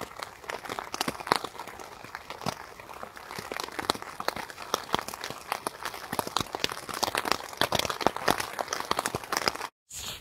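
Rain hitting a tent's flysheet, heard from inside the tent: a dense, irregular run of sharp drop ticks that stops abruptly near the end.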